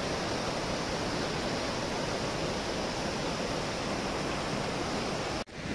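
Steady rushing of a mountain river, an even roar of water that breaks off for an instant near the end.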